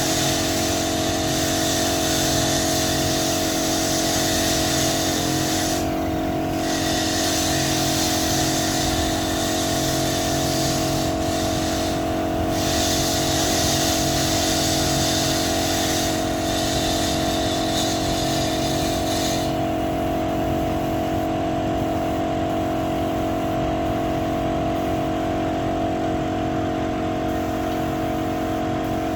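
A motor runs steadily, the way an air compressor would, while a high hiss like a paint spray gun comes in long spurts. The hiss breaks off briefly three times and stops for good about two-thirds of the way through, leaving the motor running alone.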